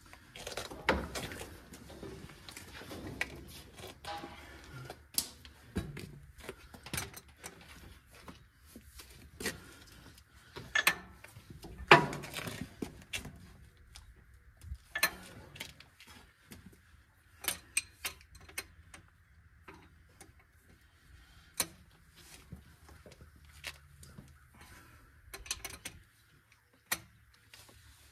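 Irregular metal clicks, clinks and a few sharper knocks from a hand wrench working the bolts on a tractor's rear wheel hub.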